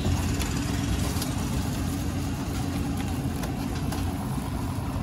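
A steady low rumble, with a few faint clicks over it.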